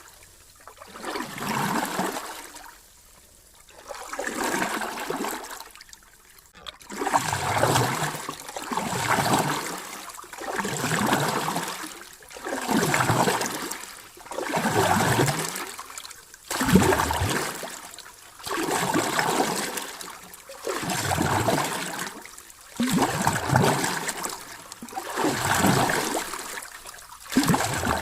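Sea waves washing in and drawing back in a steady rhythm, a surge of rushing water about every two seconds.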